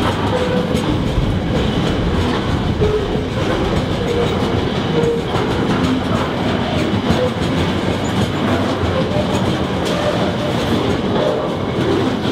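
Container wagons of a freight train rolling past close by: a steady rumble of wheels on rail with rapid clicking over rail joints and a few brief faint squeaks.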